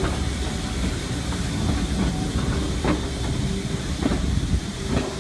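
Steam-hauled passenger train running along the track, heard from an open carriage window: a steady rumble with sharp clicks about once a second, uneven in spacing, as the wheels pass over rail joints.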